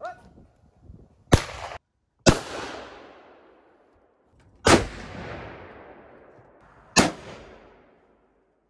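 Four rifle shots fired at uneven intervals, each sharp crack followed by a long fading echo.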